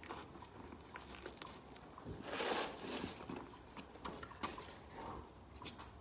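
Handling noise as travel boots are fitted to a horse's legs: rustling and scuffing with scattered light knocks, and one louder rasp about two seconds in.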